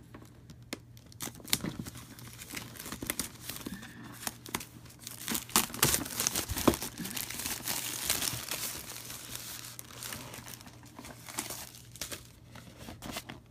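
Plastic shrink-wrap crinkling and tearing as a game box is cut and unwrapped, with scattered sharp clicks and taps of the packaging being handled, busiest in the middle.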